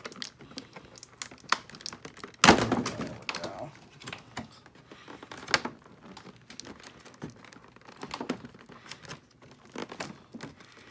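Cardboard box tabs being worked and pulled free by hand, with scattered clicks and crinkling of the cardboard and plastic packaging, and a loud thump about two and a half seconds in. The tabs are glued in.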